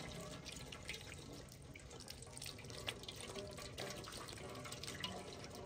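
Water running from an outdoor standpipe tap and splashing into a metal basin below, a steady splashing with many small drips and spatters.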